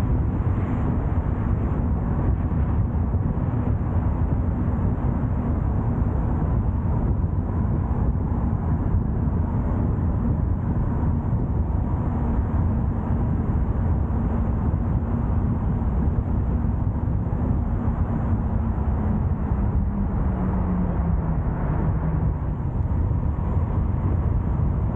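A car driving along a road: steady road and wind noise with an engine hum, the engine note dropping lower near the end as it slows or shifts.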